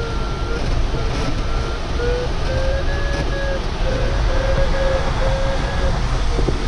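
Glider variometer giving a pulsing beep that drifts gently up and down in pitch, over a steady rush of airflow in the cockpit. A beeping vario tone is the sign that the glider is climbing in lift.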